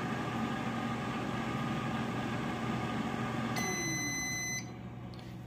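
Emeril Lagasse air fryer's fan running with a steady hum. Near the end the timer runs out with one long high beep of about a second, and the fan winds down with a falling pitch: the cooking cycle is finished.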